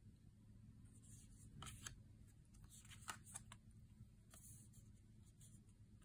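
Faint handling of oracle cards: soft slides and light taps as a card is laid on a pile and the next one is picked up, a few short card noises about a second and a half in, around three seconds and again near four and a half seconds, over low room hum.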